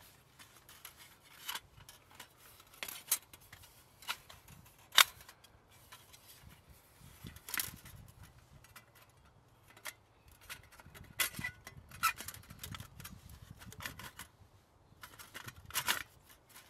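Hinged metal panels of a Bush Box folding wood stove clicking and clinking as they are handled and slotted by hand: scattered sharp metallic clicks, the loudest about five seconds in.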